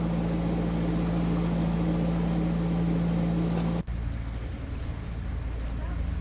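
Narrowboat's inboard diesel engine running steadily while cruising, a steady hum with a noisy rush over it. About four seconds in the sound cuts off abruptly and goes on quieter, without the steady hum.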